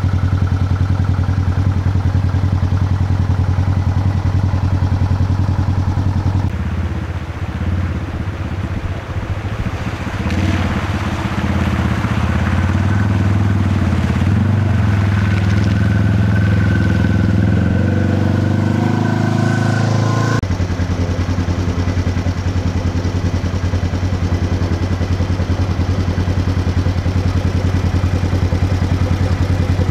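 Polaris RZR 900 UTV's twin-cylinder engine running at a steady drone. From about six seconds in to about twenty seconds, the engine pitch shifts and rises as the machine drives through a shallow creek with water splashing. Then it cuts back to the steady drone.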